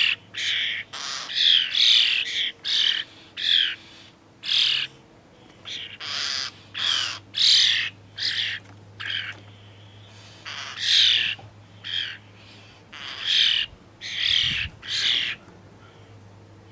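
Young starlings giving harsh, repeated begging squawks, about one or two a second, with a short lull partway through. These are the calls of fledglings that keep squawking until an older bird comes and feeds them.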